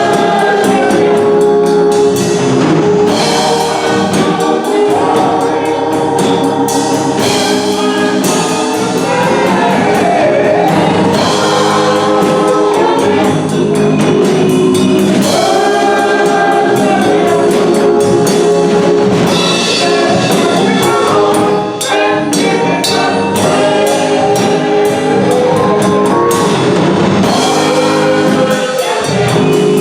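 Gospel choir singing with band accompaniment and drum kit.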